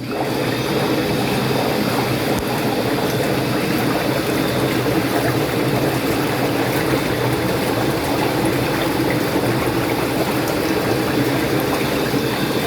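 Walk-in bathtub's jets running in the filled tub: a steady motor hum with water churning, switched on suddenly at the start.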